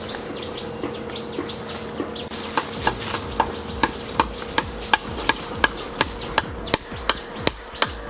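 Hammer blows cutting into a coconut palm trunk: a few light taps, then from about two and a half seconds in a steady run of strikes about three a second, each with a short ring.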